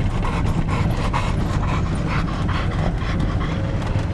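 American bulldog panting quickly and rhythmically, right at the microphone, over the low steady rumble of the vehicle's engine.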